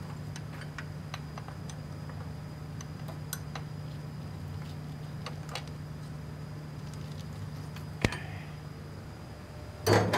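Scattered light metallic clicks and taps from hand tools being worked on the underside of a truck, over a steady low hum. A sharp click comes about eight seconds in, and a louder clatter near the end.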